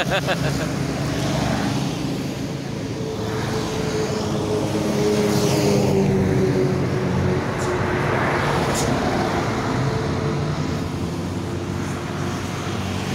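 Road traffic: vehicle engines running steadily with tyre and road noise, one engine's tone drifting slowly in pitch as a vehicle goes by.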